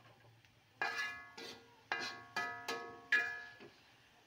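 Long metal spatula knocking and scraping against a thin metal wok while stirring in hot oil, the wok ringing after each stroke; about six strokes in under three seconds.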